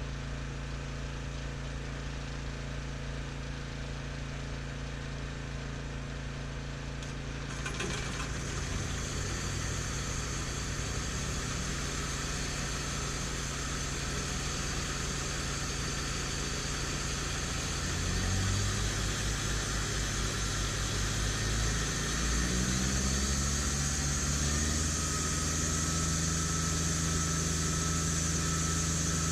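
Sawmill engine running at idle. A few seconds in, a steady high hiss joins it, and later the engine speeds up in two steps.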